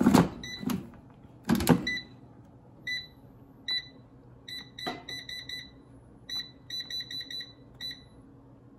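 Air fryer basket pushed shut with a clunk at the start and another about a second and a half in. Then the fryer's digital touch panel beeps a dozen or more times as its buttons are pressed to set the cooking time: short high beeps, some single and some in quick runs.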